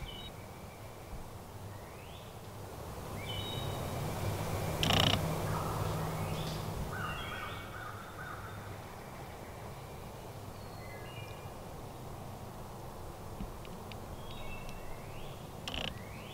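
Wild birds calling in spring woods: short, scattered calls and rising chirps, with a brief louder knock about five seconds in and a few faint clicks near the end.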